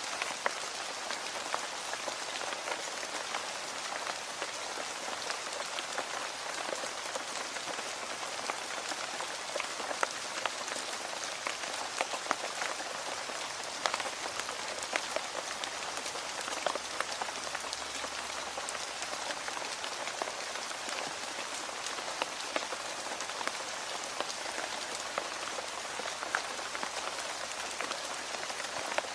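Steady rain falling, an even hiss with many scattered sharp drop ticks.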